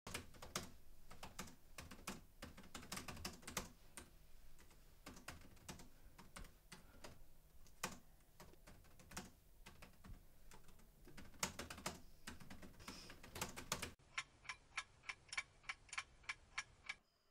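Fast, irregular typing on a laptop keyboard. About fourteen seconds in it gives way abruptly to a steady clock-like ticking, about four ticks a second.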